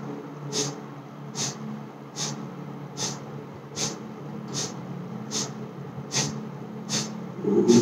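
Kapalbhati pranayama: a steady series of short, forceful exhalations through the nose, about ten sharp puffs evenly spaced roughly 0.8 s apart. A louder low rumble comes near the end.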